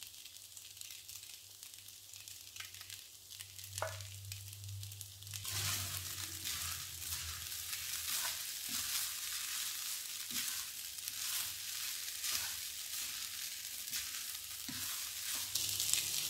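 Egg fried rice sizzling in a non-stick wok while it is stirred and tossed with a wooden spatula, with soft scrapes and knocks of the spatula. The sizzle grows louder about five seconds in as the stirring picks up.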